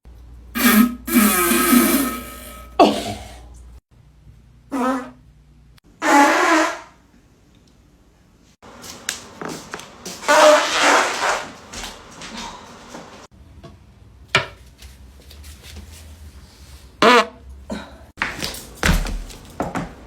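A string of human farts, one after another, of varying length: several short ones and a longer one lasting a few seconds around the middle.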